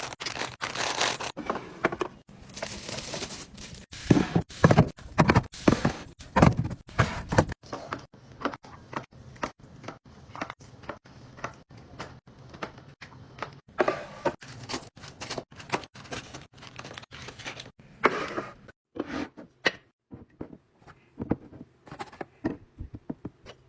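Kitchen items being handled and set down: an irregular run of clicks, knocks and clatter, busiest and loudest about a third of the way in, with a short rustle before it.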